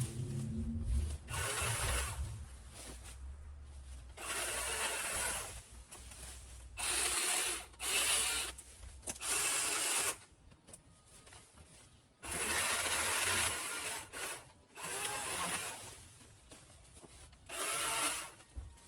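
Repeated scraping and rubbing: about eight uneven bursts, each lasting about a second, with short quiet gaps between them, as things are dragged and moved to clear the work area. A low rumble fades out in the first couple of seconds.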